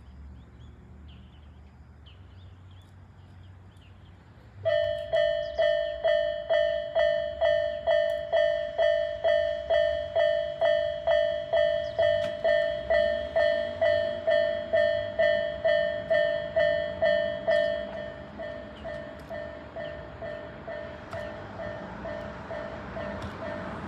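Japanese railway level-crossing alarm with the Tobu 'Isesaki type' tone, starting about four and a half seconds in and ringing at about two dings a second, then dropping in volume about 18 seconds in. A rushing noise builds beneath it near the end.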